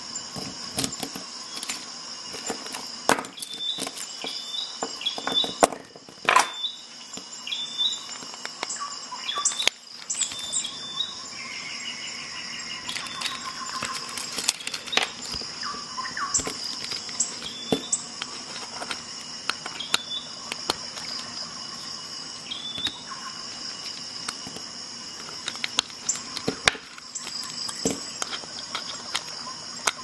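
A steady high-pitched insect chorus, with scattered light clicks and taps throughout.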